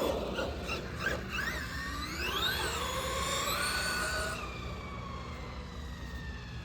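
The electric motor and drivetrain of a WOV Racing Blitzkrieg 4S RC monster truck whining under throttle. The pitch swings up and down, climbs and holds high about two to four seconds in, then drops away as the truck slows.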